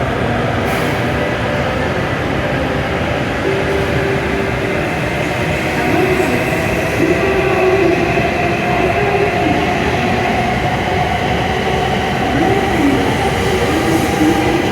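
A W7 series Shinkansen train pulling away. Its electric motor whine rises slowly in pitch as it gathers speed, over steady running rumble.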